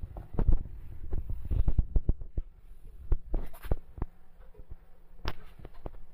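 Irregular low thumps and rubbing close to the microphone, thickest in the first couple of seconds, with one sharp click about five seconds in: handling noise from a handheld phone.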